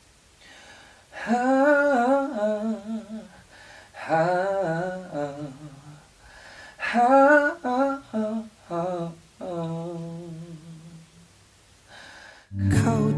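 A man singing a slow melody alone, unaccompanied, in three long phrases with vibrato. Near the end, guitar-led music comes in.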